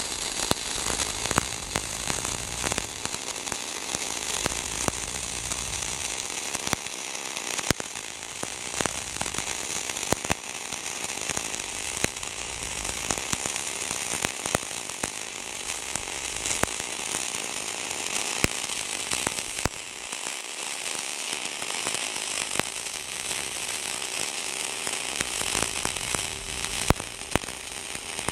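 Dual-shield flux-cored welding arc from an HTP Pro Pulse 300 MIG welder laying a bead: a steady crackling sizzle with frequent sharp pops.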